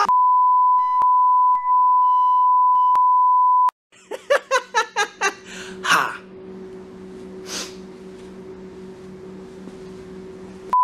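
A steady, high-pitched electronic beep tone for about three and a half seconds, cutting off sharply. Then a man's rapid cackling laugh, about eight quick bursts, with a steady low electrical hum underneath; the beep tone returns briefly at the very end.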